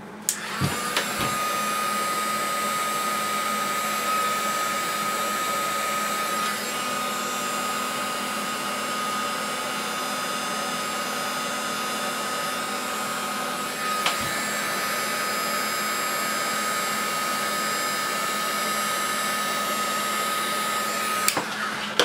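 A small handheld heat gun running: a steady rush of air with a constant high whine from its fan motor. It switches on just after the start and cuts off about a second before the end.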